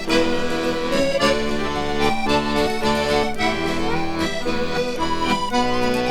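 Instrumental introduction to a traditional English folk song, led by an accordion, with chords changing on a steady beat.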